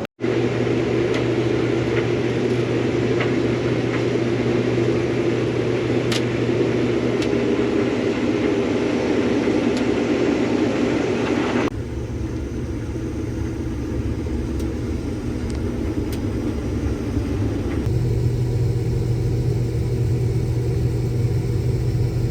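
Steady engine and machinery noise from farm harvest equipment, in three separate shots that change abruptly about twelve and eighteen seconds in. A steady low hum runs underneath, strongest in the last shot.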